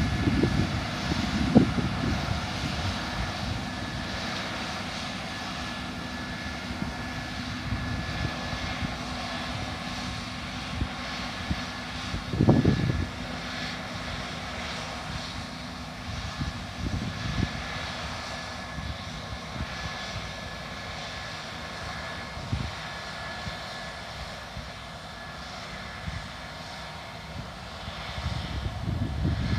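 Case IH 5140 Axial-Flow combine harvester running at work while harvesting, a steady distant engine-and-machinery drone with a few held tones that fades slightly as the combine moves away. Wind gusts buffet the microphone now and then.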